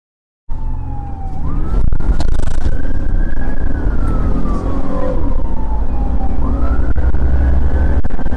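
Police car siren wailing, rising quickly and falling slowly in long cycles, heard from inside the pursuing patrol car over a loud low rumble of the car on the road. It starts suddenly about half a second in.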